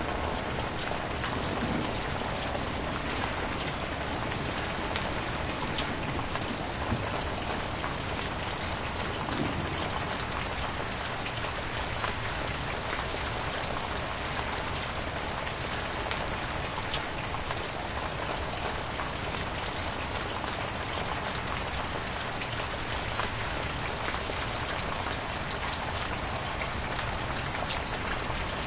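Heavy rain falling steadily, with scattered sharp ticks of single drops striking a surface.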